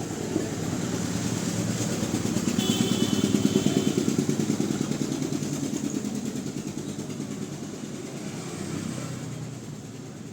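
A motor running with a fast, even pulse. It swells to its loudest a few seconds in, then slowly fades.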